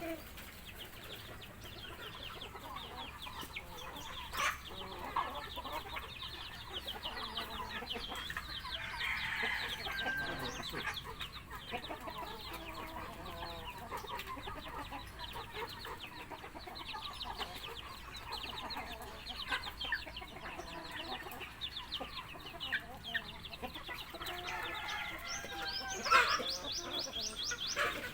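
A flock of chickens clucking and calling continuously, with a louder flurry of sharp calls near the end.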